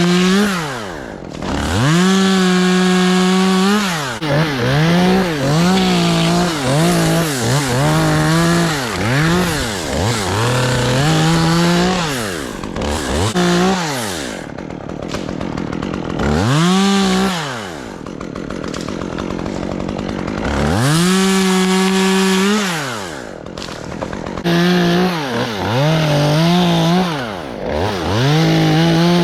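Two-stroke chainsaw cutting branches from a pine tree. It is revved repeatedly to full throttle and dropped back toward idle: longer full-throttle pulls near the start, about two-thirds through and near the end, with a run of short quick blips in between.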